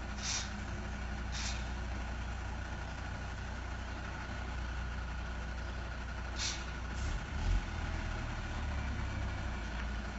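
Heavy truck's diesel engine running at a low, steady idle as the tanker truck creeps forward, with a few short hisses of air and a low thump about seven and a half seconds in.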